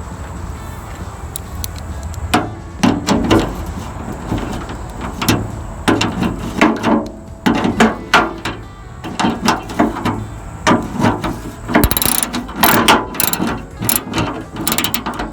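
Hand ratchet clicking in repeated short runs of strokes while bolts are tightened, starting about two seconds in.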